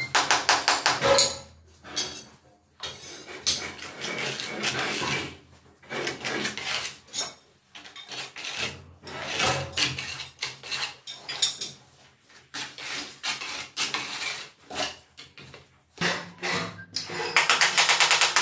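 Small notched trowel scraping tile adhesive across the back of a tile strip, in runs of quick strokes with short pauses; the strokes come faster and louder near the end.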